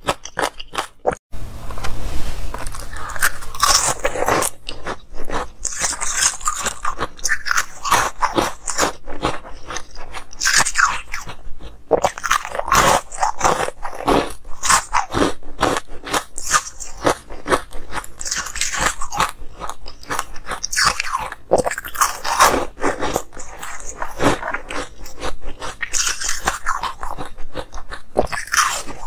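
Close-miked crunching as frosty ice cubes are bitten and chewed, with crisp, irregular crunches following one another throughout. The sound drops out briefly about a second in.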